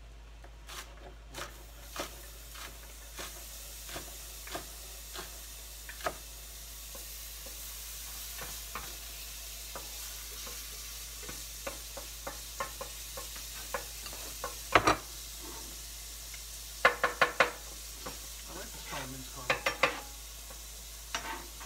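Minced garlic and ginger sizzling in a stovetop pan, a steady hiss that builds over the first few seconds, with scattered clicks and knocks of utensils and knife. A loud knock about fifteen seconds in, then a quick run of ringing metal clanks near the end.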